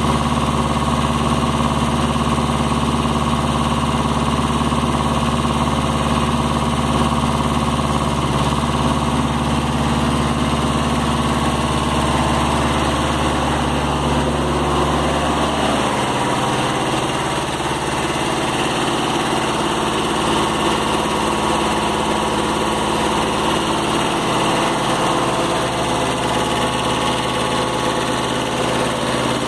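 Kubota B7000 compact tractor's diesel engine idling steadily. Its strong low hum drops away about halfway through, and the engine keeps running at a slightly changed tone.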